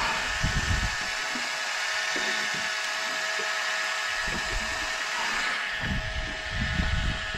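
Electric fishing reel's motor whining steadily as it winds in line with a hooked fish on. A few low rumbles come through underneath, about half a second in and again near the end.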